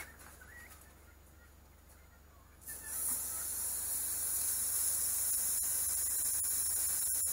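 Compressed air from a shop air line hissing steadily as it pressurises a cylinder of a Chrysler 318 V8 through the spark-plug hole. The hiss starts suddenly a little under three seconds in, when the air reaches the cylinder, and it is a slight air leak. A faint tick comes near the end.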